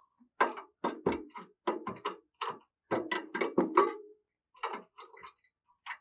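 A caged spotted dove moving about at its perch and feeder jars, making a quick, irregular run of taps and knocks, about a dozen in a few seconds.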